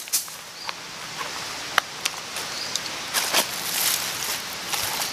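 Dry twigs, leaves and sticks rustling and snapping as they are handled and laid on a campfire pile, with a steady crackly hiss and scattered sharp clicks.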